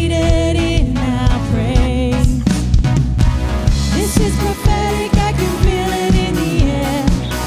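Worship band playing a contemporary Christian song, with a lead vocalist singing over drums, bass and keyboards.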